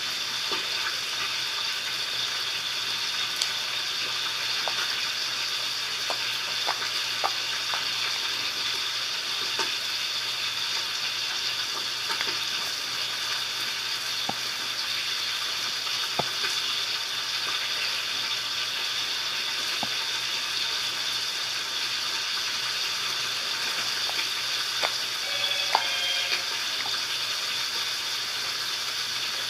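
Foam-topped slime being handled: a steady crackling hiss with scattered small clicks and pops, and a short squeak near the end.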